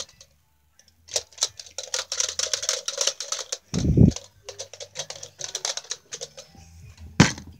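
Clattering handling noise: rapid clicks and rattles as hands grab and move hard objects and the handheld camera, with a low thump about four seconds in and a sharp click near the end.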